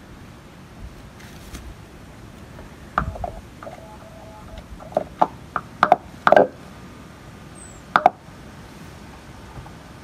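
Bioelectrical signal from a clump of fairies' bonnets mushrooms played through an oscillator. About eight short, pitched pops and a few brief beeping tones come between about three and eight seconds in, over a steady faint hiss.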